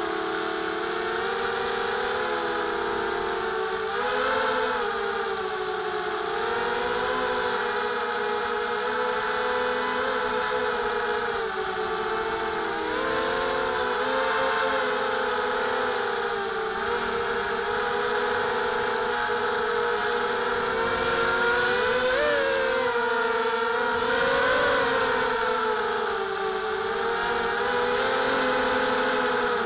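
Mini FPV racing quadcopter's brushless motors and propellers whining steadily as heard from its onboard camera, the pitch rising and dipping every few seconds as the throttle changes.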